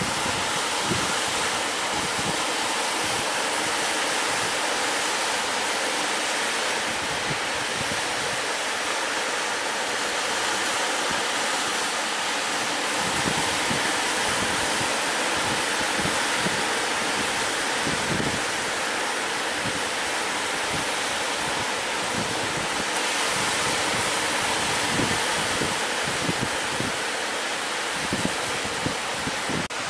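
Sea surf breaking and washing up the beach in a steady rush, with gusts of wind buffeting the microphone.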